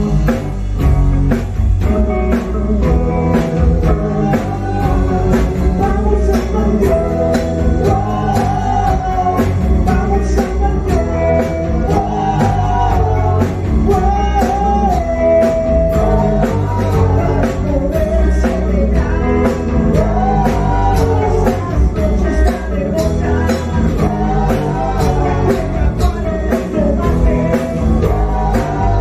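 Rock band song playing: drums keeping a steady beat under guitar, with a man's voice singing.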